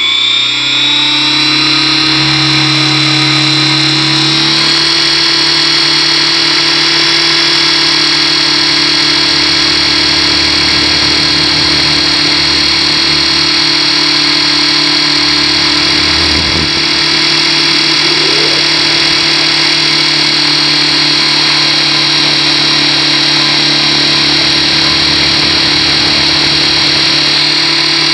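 Align T-Rex 600 Pro RC helicopter's motor and rotor, heard from a camera mounted on the helicopter. The whine rises in pitch during the first few seconds as the head spools up for takeoff, steps up once more about four seconds in, then holds a steady high pitch in flight.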